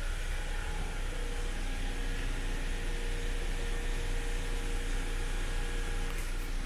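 A steady mechanical hum with an even hiss, holding level throughout.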